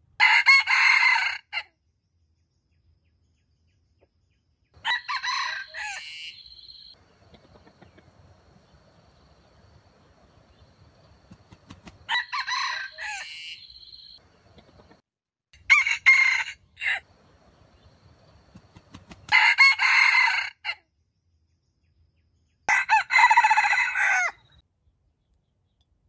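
A rooster crowing, six crows of about one to two seconds each with quiet gaps of a few seconds between them.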